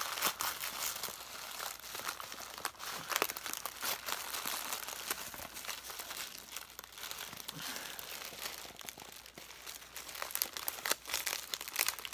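Package wrapping being torn open and crumpled by hand: continuous crinkling and tearing with many sharp crackles, busiest near the start and again near the end.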